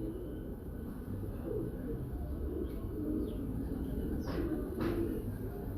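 Many pigeons cooing together in a steady low murmur. Two short, sharp, falling high sounds come through near the end.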